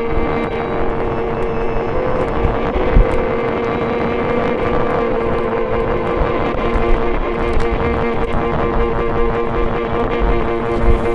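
Violin picked up through a contact mic, played as a sustained drone: one steady held tone with overtones over a rumbling, crackly low noise.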